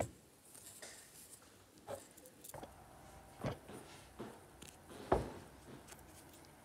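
Soft handling sounds of hand embroidery: needle and thread being drawn through a small fabric ball, with fingers rubbing the fabric and a few light taps and rustles, the loudest a little after five seconds in.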